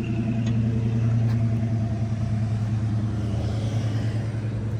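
Car engine running with a steady low hum, with faint road noise.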